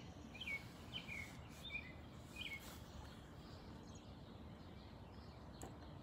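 A bird calls with short, sharp chirps, one or two a second, for the first two and a half seconds. After that only faint, steady background noise remains.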